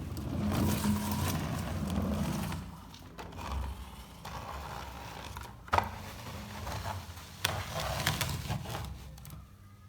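Toy RC cars running on a hard floor: a rolling, scraping rumble of small plastic wheels and motors, with two sharp knocks about a second and a half apart near the middle.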